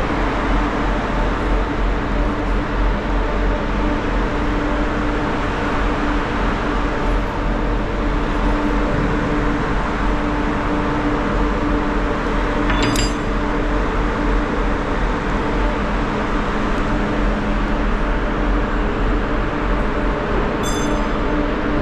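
Steady drone of a ferry's machinery and ventilation on the enclosed vehicle deck, with several low hum tones held throughout. A sharp metallic clink rings out about halfway through and another near the end.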